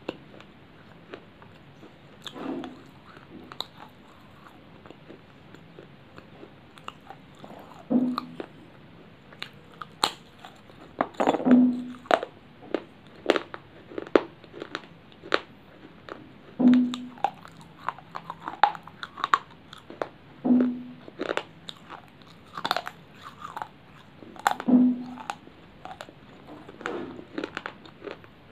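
Close-up crunching and chewing of dry baked clay pieces (clay chips): irregular sharp crunches, sparse at first and coming thick and fast from about eight seconds in.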